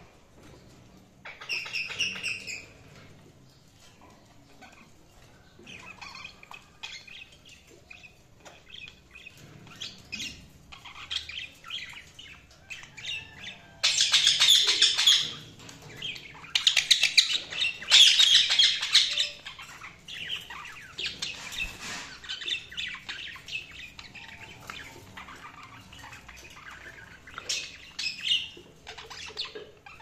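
Cockatiel chirping: scattered short calls, with two loud runs of rapid chirps about halfway through.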